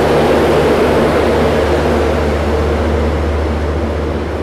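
Diesel generator sets in an LHB luggage, brake and generator car running steadily: a loud, even drone with a low hum, easing slightly near the end.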